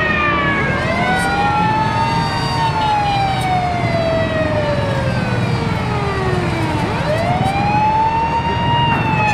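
Several fire truck sirens wailing at once: one slow wail rises over about two seconds and sinks away over about four, twice, while other sirens glide down in pitch over it. A steady low rumble runs underneath.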